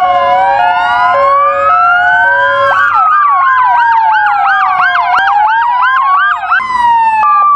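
Several emergency-vehicle sirens sounding together as a convoy drives in. Slow rising and falling wails overlap a two-note hi-lo tone, and from about three seconds in a fast yelp sweeps up and down about three times a second. The yelp switches off suddenly near the end, leaving the slow wail.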